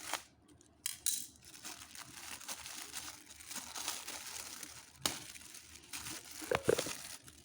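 Toy packaging crinkling and tearing as it is opened by hand, with a few sharp clicks and a louder rustle near the end.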